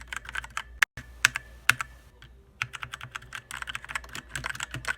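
Typing on an E-Element Z88 mechanical keyboard with brown switches: a run of sharp key clicks, sparser at first, then faster, denser keystrokes from a little past halfway.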